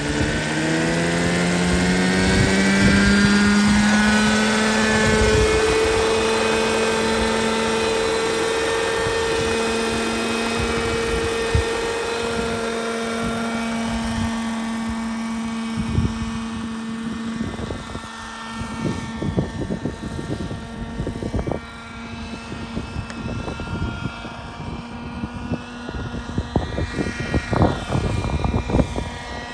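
Vintage Schluter Scout RC helicopter's engine and main rotor spooling up, the pitch rising over the first few seconds, then holding a steady hum as the model lifts off and hovers. From about halfway on, irregular low thumps and crackles break in over the hum.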